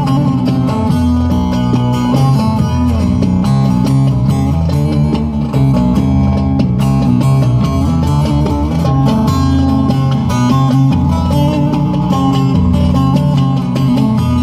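Instrumental introduction of a Turkish folk song: a bağlama (long-necked saz) plays a plucked melody over a steady rhythm from hand drums.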